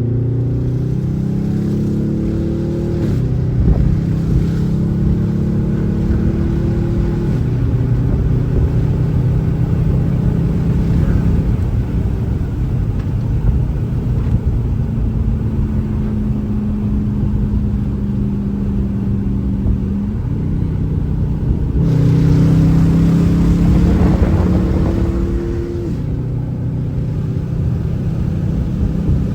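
Hemi V8 of a Dodge Charger with its rear and mid mufflers cut off, pulling hard under acceleration with a very loud exhaust. The engine note climbs in pitch through each gear and drops sharply at each upshift, several times.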